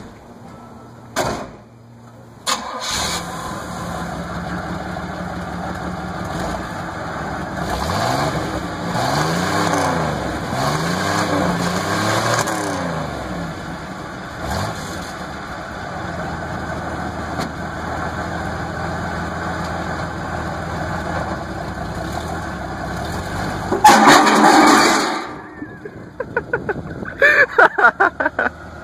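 1980 Pontiac Firebird V6 starting through a modified exhaust, then running with its revs blipped up and down several times before settling into steady running. Near the end there is a very loud burst, the engine sound drops away, and a quick series of sharp pops follows.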